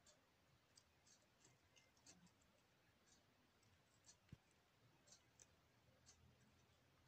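Near silence with faint, irregular little clicks from a Dzungarian hamster in its hay-lined cage, one slightly louder tick about four seconds in.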